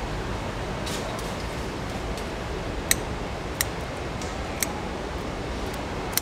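Kitchen shears snipping through the shell of a raw mantis shrimp: a series of sharp, separate clicks about a second apart, over a steady background hum.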